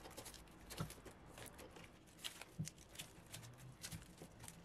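Faint rustling and scattered light clicks of wiring, electrical tape and plastic plug connectors being handled and pulled out of a robot's chassis, with a couple of soft knocks.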